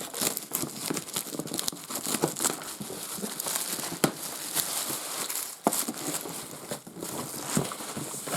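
Plastic wrapping being pulled and torn off a cardboard box and crumpled: continuous crinkling with sharp crackles throughout.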